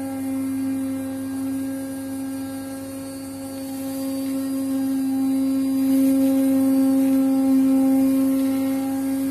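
CNC vibrating-knife fabric cutting machine running: a steady buzzing hum on one strong pitch, swelling a little louder about six seconds in.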